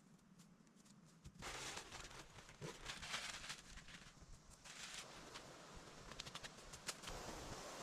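Rustling and light crackling of leaves and twigs with scattered sharp clicks, starting about a second and a half in.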